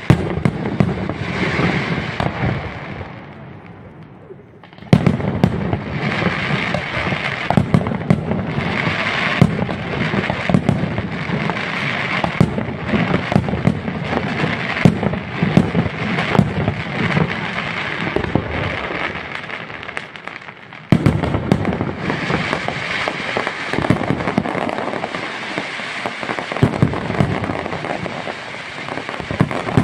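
Aerial fireworks display: a dense barrage of shell bursts with rapid crackling. The firing dies away about three seconds in and again near twenty seconds, and each time it restarts suddenly with a sharp bang.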